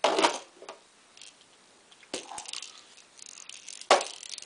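Hard plastic toys knocking and clattering as a red plastic toy is banged against a VTech baby walker's plastic activity panel: three sharp knocks, one at the start, one about two seconds in and one near the end, each with a brief rattle.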